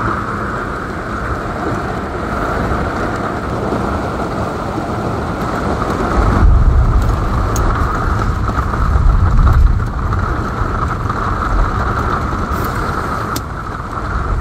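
Heavy rain pouring steadily onto an RV's roof and windows, heard from inside. Deep rumbles swell up twice in the middle.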